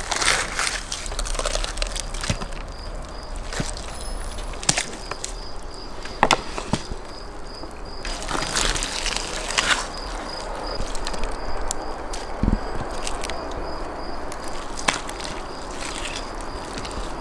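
Whole roasted lamb being torn apart by hand on wooden boards: meat and ribs pulled and ripped loose, with scattered sharp clicks and knocks and two longer stretches of tearing, one near the start and one about halfway through.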